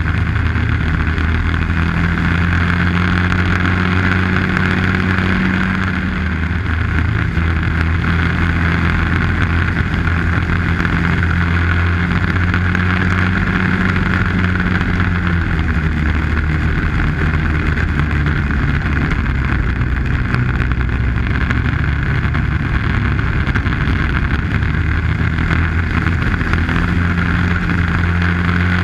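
Arctic Cat snowmobile engine running steadily at trail speed, with track and wind hiss. The engine eases off briefly about six seconds in, then picks back up.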